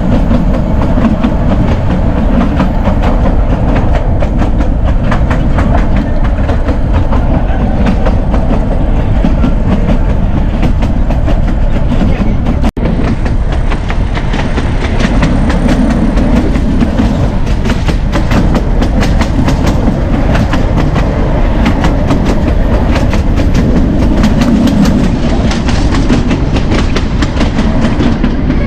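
Narrow gauge train running, heard from on board a coach: a steady rumble and rattle with rapid clickety-clack of the wheels over the rail joints. It breaks off for an instant about halfway through.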